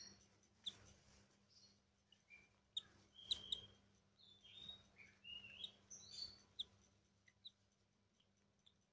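Lovebird chicks giving high, short begging chirps while being hand-fed, thickest in the middle of the stretch, with a few brief sliding calls among them.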